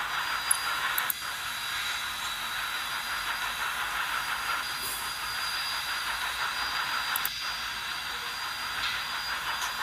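Steam train sound from a video, replayed through a laptop's small speakers: a steady, thin rushing noise with almost no low end, and a faint steady high tone running through it.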